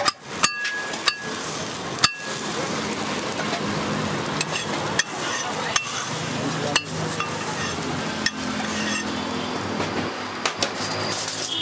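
Steady sizzling and crackle at a charcoal-fired dosa griddle, broken by sharp clinks and taps of metal utensils and steel plates, a few of them ringing briefly.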